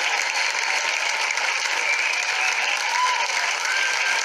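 Crowd applause: many hands clapping at a steady, even level.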